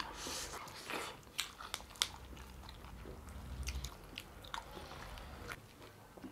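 Close-up eating sounds of a meal of mutton curry and rice: chewing, biting and wet mouth smacks, with many short, sharp clicks scattered throughout.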